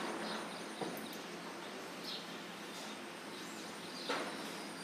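Sparrows chirping in a few short, high notes over a steady background hiss, with a small click about a second in and a sharper knock near the end.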